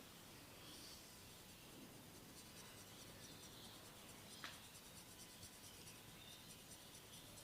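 Faint scratching and rubbing of hands on hair and scalp during a head massage, with a single sharp click about four and a half seconds in.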